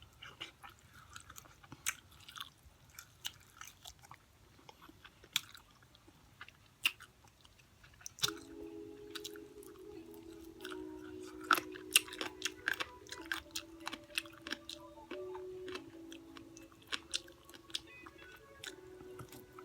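Chewing and crunching of crispy fried chicken, with many sharp crunches and wet mouth smacks. Soft background music with held notes comes in about eight seconds in.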